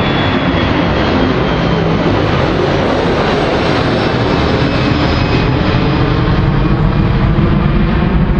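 Boeing 737-300's twin CFM56-3 turbofan engines at climb power, a loud, steady jet roar as the airliner climbs away overhead after takeoff. A faint high whine fades out in the first couple of seconds.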